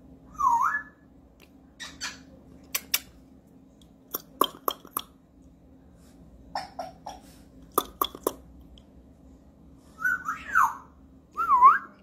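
African grey parrot giving short swooping whistles, one about half a second in and several near the end, with clusters of sharp clicks in between.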